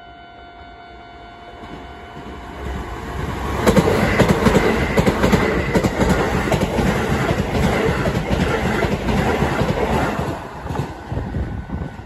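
Keisei electric train passing over a level crossing at close range, its wheels clattering over the rail joints, loud from about three and a half seconds in until it fades near the end. Early on, the crossing's warning bell rings steadily before the train sound covers it.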